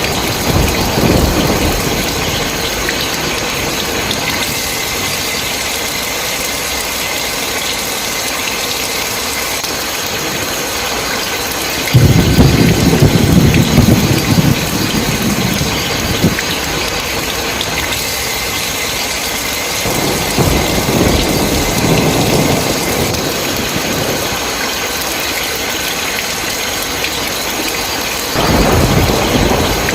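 Steady heavy rain hissing, with rolling thunder. A loud rumble breaks in suddenly about twelve seconds in and fades over several seconds, a softer rumble comes around twenty seconds, and another starts near the end.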